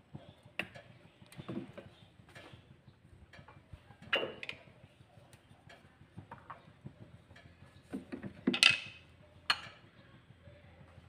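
Scattered light clicks and knocks of kitchen handling around a frying pan on a gas stove. Two louder knocks come about four seconds in and eight and a half seconds in.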